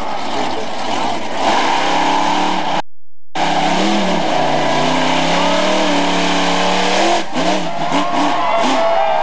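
Monster truck engine revving hard, its pitch climbing and falling with the throttle, with a brief dropout about three seconds in and a few sharp thuds around seven seconds.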